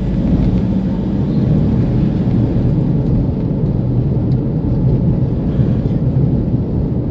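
Steady low rumble of road and engine noise from a vehicle driving at speed on an expressway.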